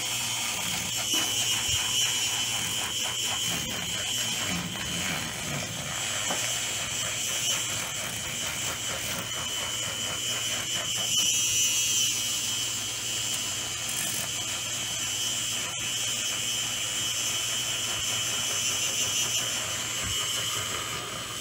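Aerolatte handheld battery-powered milk frother running, its spinning whisk frothing milk in a glass with a steady high-pitched whir.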